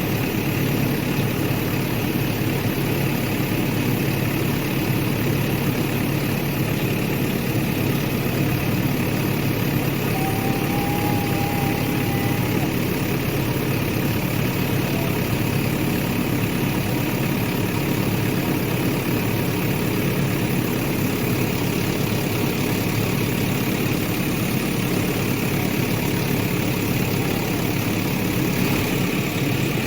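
Excavator's diesel engine running steadily at idle.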